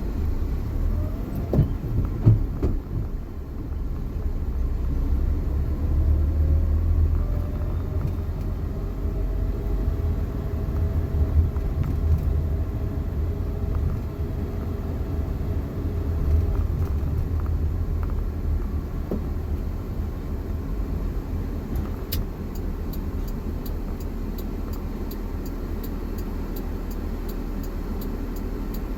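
Suzuki JA71 Jimny under way: a steady low drivetrain rumble, with a faint whine that rises slightly in pitch for several seconds in the middle. The uploader attributes that whine to a failing transmission bearing. Near the end a regular ticking starts, about two a second.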